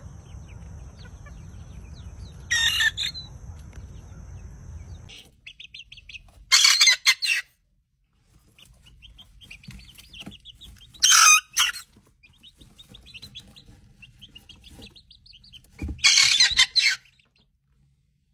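Young cockerels attempting to crow: three short, harsh crows of about a second each, some five seconds apart, with soft peeps and clucks between. Before them, a rooster gives one brief call over steady outdoor background noise.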